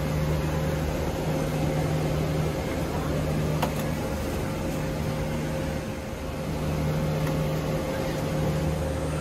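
Steady airliner cabin hum: the drone of ventilation and engines, with a constant low tone that drops out briefly a little past halfway.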